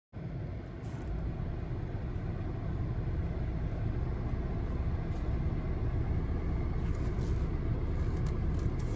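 Steady low rumble of a motor vehicle that starts abruptly just after the start, with a few faint clicks around the first second and again near the end.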